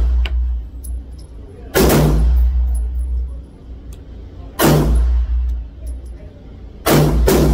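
Four pistol shots in an indoor range booth, each a sharp crack with an echoing tail: one about two seconds in, one a little past the middle, and two about half a second apart near the end.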